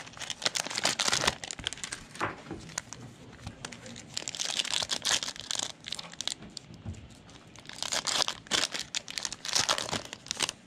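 Plastic wrapper of a Panini Mosaic basketball card pack crinkling as it is torn open and handled, in several spells over a few seconds.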